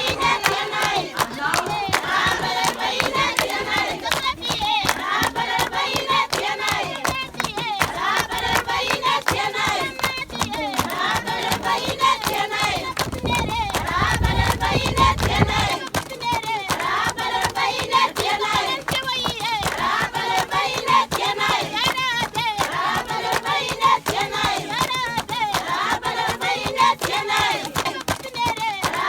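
A crowd of voices singing together with hand-clapping, lively and continuous, with a low rumble briefly in the middle.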